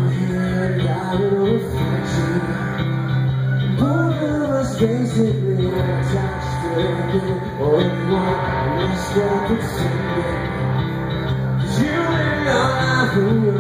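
Live rock band playing through a PA: amplified electric guitar and bass guitar over a steady low note, with a voice singing long, sliding phrases.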